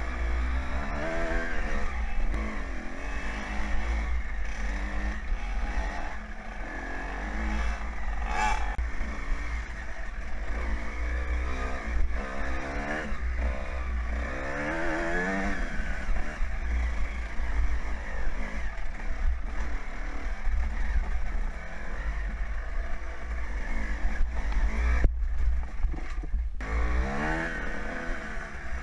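Suzuki RM125 two-stroke dirt bike engine ridden hard, revving up and down repeatedly with the throttle, over heavy low rumble on a helmet-mounted microphone. The sound cuts out briefly a few seconds before the end.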